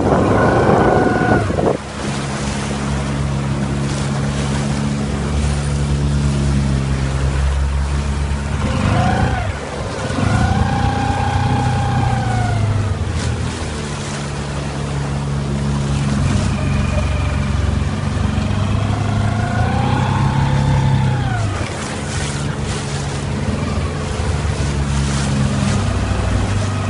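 Mercury 9.9 outboard motor pushing an inflatable boat, running steadily with its pitch rising and then falling twice as the throttle is worked, over wind and water noise. A loud rush of wind noise fills the first two seconds.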